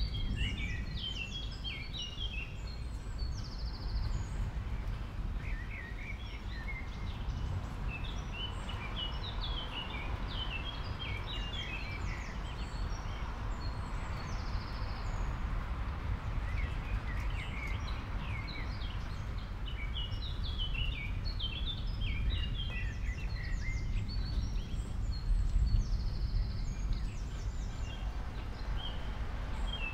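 Bouts of quick, short, high chirps, a few to several a second, over a steady low background noise.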